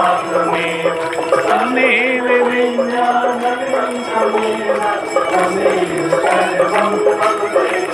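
Hindu aarti music: a single melody line holding notes and stepping between them, over continuous bell ringing.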